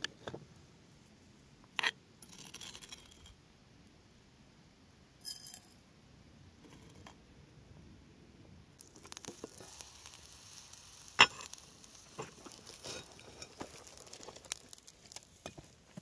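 Sharp knocks and clinks of hard objects on a stone mortar and stone slab while coffee is made: a sharp knock about two seconds in, a short ringing metal clink about five seconds in, then a run of small clicks and taps from about nine seconds on, the loudest a little past eleven seconds.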